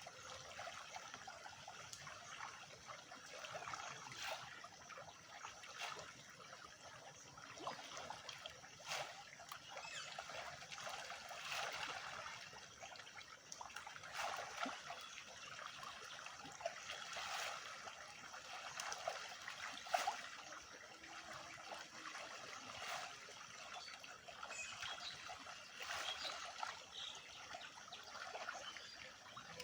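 Water trickling and splashing, with many small splashes and pops scattered throughout.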